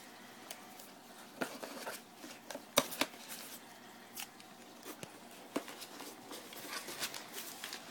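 Hands handling packing material in a styrofoam-lined cardboard box: quiet, scattered rustling of crumpled newspaper and small clicks and creaks of foam, with one sharp knock about three seconds in.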